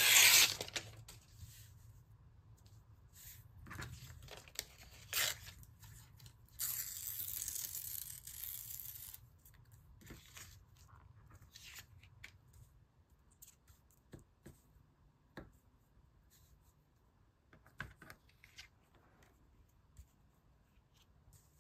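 Magazine paper being torn by hand: a loud rip at the start, two short tears around four and five seconds in, and a longer tear from about six and a half to nine seconds, followed by light paper rustles and small clicks.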